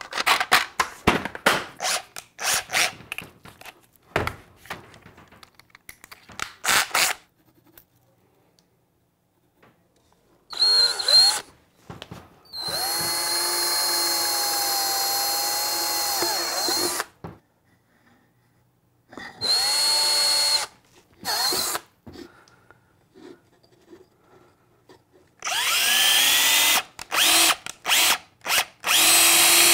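Small parts clattering in a plastic organizer case for a few seconds. Then a DeWalt cordless drill drills into a white plastic adapter in four separate runs, the longest about four seconds, each spinning up to a steady whine.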